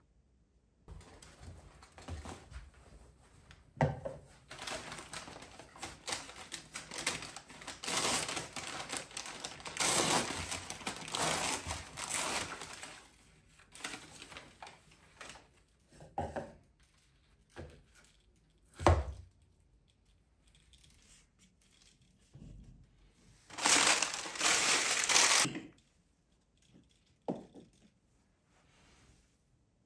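A brown paper bag rustling and crinkling as it is handled, in two long stretches, with a few sharp knocks of a plant pot set down on a hard surface. The loudest knock comes about two-thirds of the way through.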